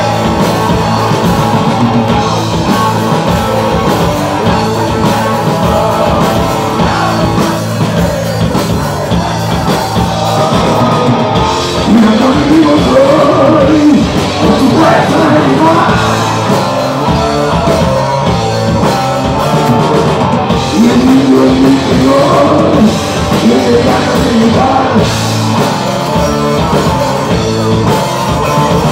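Rock band playing live: distorted electric guitar and drums, loud and continuous, with a singing voice over the middle part.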